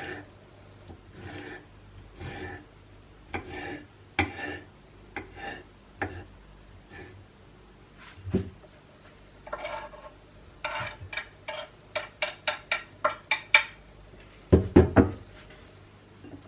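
Kitchen utensils working against wood and dishes: a run of short scrapes, then about a dozen quick, even strokes at about three a second, then a few heavy knocks near the end.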